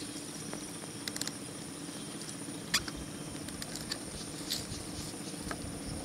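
Bamboo pole creaking and clicking under a climber's hands and feet: a few short sharp clicks and squeaks, about a second in, near the three-second mark and twice later, over a steady high insect drone.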